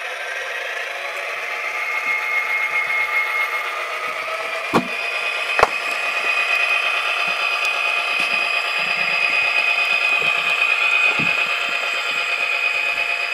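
Tsunami sound decoders playing EMD 567 diesel prime-mover sound through small speakers in Atlas SD35 model locomotives, running steadily with a reedy, tinny tone. Two sharp clicks come about five seconds in.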